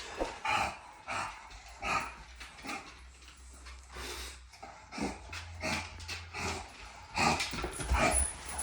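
A dog making a long series of short vocal sounds, about one to two a second, over a low steady hum.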